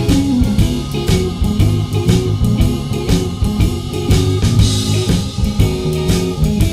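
Background music: guitar and drums playing with a steady beat.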